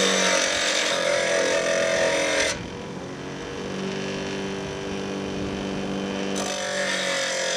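Bench grinder's wheel grinding a small part pressed against it: a loud rasping grind with a slightly falling whine for the first two and a half seconds, then the wheel spins free with a steady motor hum, and the grinding starts again about six seconds in.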